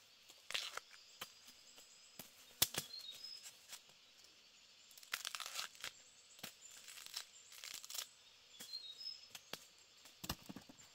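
Husk sheaths being torn and stripped off a freshly cut bamboo shoot with a machete: a series of tearing crackles and knocks of the blade on the shoot, the loudest a sharp knock between two and three seconds in. Faint bird chirps now and then.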